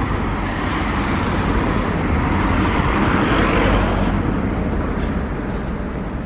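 A car passing close by on the road, its engine and tyre noise swelling to a peak about three and a half seconds in, then fading.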